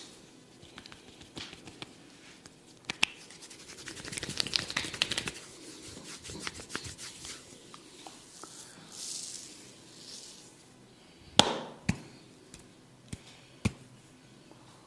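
Barber's hands working over hair and skin in close-up, with scratching and rubbing, a dense run of crackling about a third of the way in, and a few sharp cracks, the loudest about three-quarters through.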